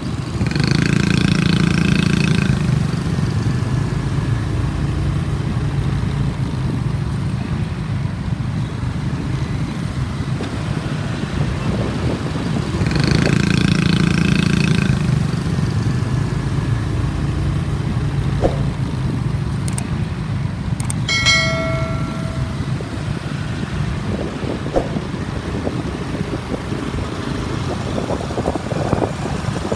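Motorbike engine and surrounding street traffic running steadily during a ride in heavy city traffic, louder twice as the engine picks up. A vehicle horn beeps briefly about two-thirds of the way through.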